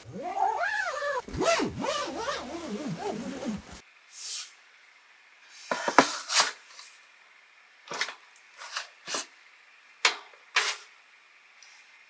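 A pitched sound sliding up and down for the first few seconds, cut off abruptly. Then a laptop is handled, set down and opened, giving a handful of separate knocks and taps, the loudest about six seconds in.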